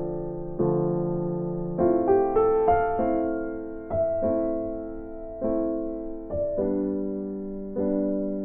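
Slow, calm piano music: soft chords struck about once a second, each left to ring out and fade, with a short run of higher notes near the middle.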